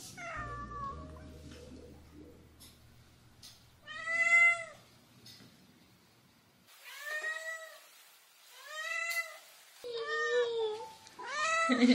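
Domestic cat meowing, about five separate meows a second or two apart, each an arching call, the first the loudest.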